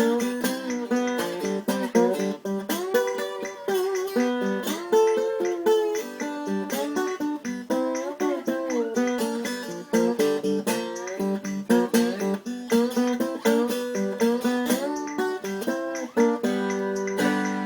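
Custom-built four-string acoustic tenor wine-box guitar played in a blues style: quick picked notes with slides and bends, then a final chord left to ring out near the end.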